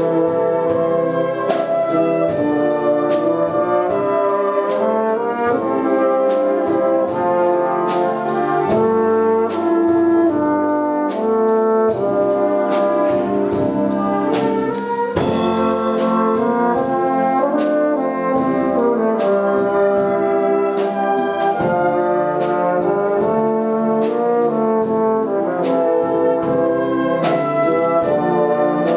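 Concert wind band with brass to the fore, accompanying a euphonium soloist, with regular percussion strokes about every second and a half.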